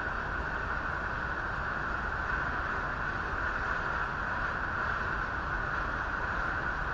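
Steady, unchanging rushing noise over a low rumble from airport fire engines running and spraying water from their nozzles.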